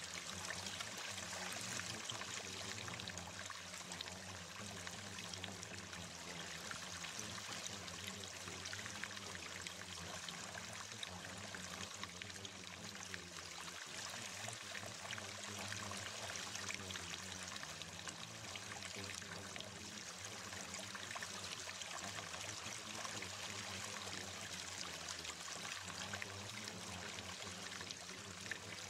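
Steady flowing water, like a running stream, without pause or change, with a low steady hum underneath.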